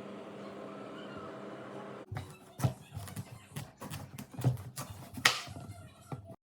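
A steady low hum for about two seconds, then a run of irregular knocks and clicks, the sound of kitchen utensils and food being handled. It cuts off suddenly near the end.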